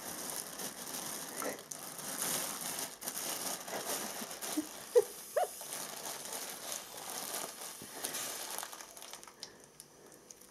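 Clear plastic bag crinkling as air is sucked out of it by mouth through a biro tube, drawing it tight around spinach cubes for freezing, with a few short squeaks about halfway through.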